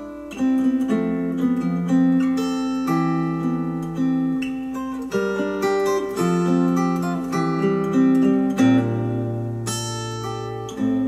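Acoustic guitar music played back through ELAC Uni-Fi 2.0 UB52 bookshelf speakers. It is a melody of single plucked notes and small chords, each ringing out and fading, with a deeper note added a little before the end.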